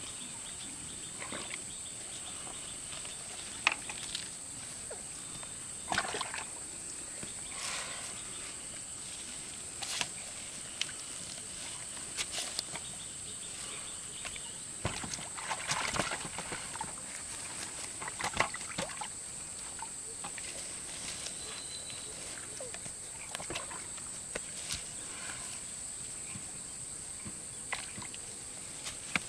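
Irregular splashes and sloshing of water from handling a fishing net and catch in a lake, over a steady high-pitched insect drone.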